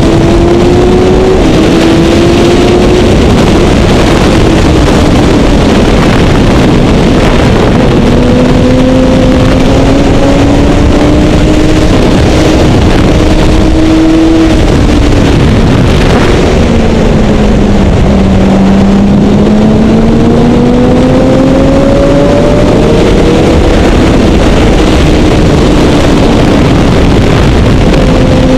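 A motorcycle at speed on a racetrack, heard through heavy wind rush on a helmet-mounted microphone. The engine note climbs in stretches as the bike accelerates and falls back as it slows for corners, with a long low dip a little past halfway before it climbs again.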